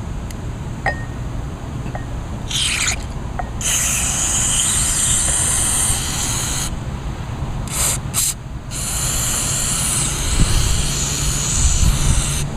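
Aerosol carburetor cleaner spraying into a small-engine carburetor: several hissing sprays, a few short ones and two longer ones of a few seconds each, over a low rumble.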